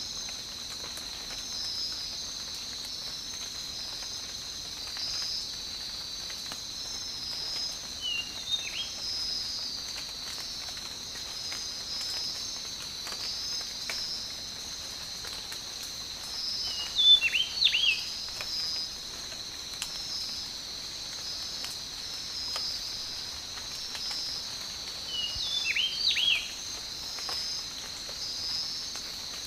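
Tropical rain ambience: a light, even patter of rain under a steady, high, gently pulsing insect chorus. Bird calls with quick sweeping notes break through three times, about eight seconds in, in the middle, and near the end, the middle one loudest.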